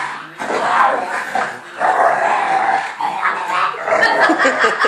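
An adult American bulldog and a bulldog puppy play-fighting, with repeated growls and barks and a quick run of short barks or yips near the end.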